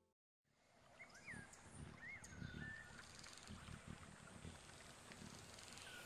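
Faint outdoor nature ambience fading in after a moment of silence, with a few short bird chirps and a soft low rumble.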